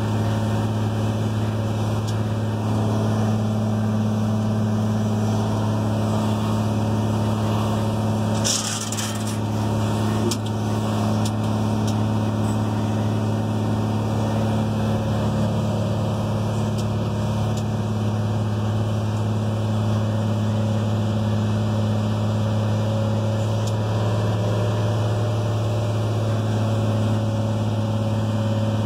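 Articulating dump truck's diesel engine droning steadily under way, heard from inside the cab, holding one pitch with no gear changes: the automatic transmission won't upshift, which the driver can't account for. A short hiss comes about eight seconds in.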